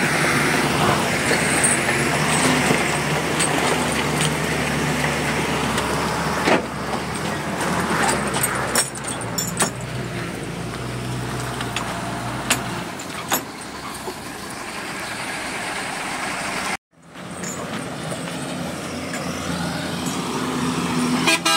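Heavy truck engines running close by, a steady low drone under a noisy haze with scattered clicks and knocks. The sound drops out for a moment about seventeen seconds in.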